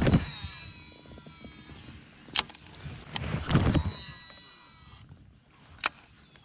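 Shimano Antares DC MD baitcasting reel casting: the spool spins out with the DC (digital control) brake's electronic whine, falling in pitch as the spool slows. The same thing happens again about halfway through, with sharp clicks between the two casts and another near the end.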